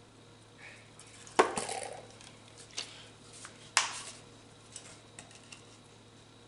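Kitchen utensils and containers being handled, giving sharp clinks and knocks: a loud one a little over a second in, others at about three and four seconds, then a few lighter ticks.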